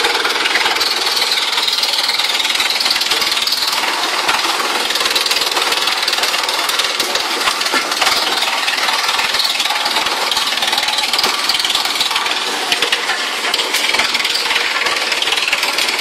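A 5–8 t/h wood chipper running under load as branches ride its conveyor into the cutter: a loud, steady grinding din full of rapid cracking and splintering wood.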